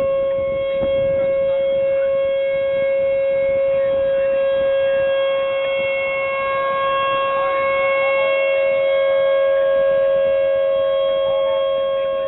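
Outdoor tornado warning siren sounding a steady held tone. A second siren tone at a slightly higher pitch joins about eight seconds in.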